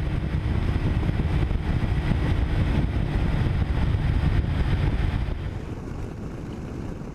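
Onboard riding sound of a Triumph Daytona 1000 at road speed: wind rushing over the microphone, with the bike's four-cylinder engine running underneath. The noise gets quieter about six seconds in.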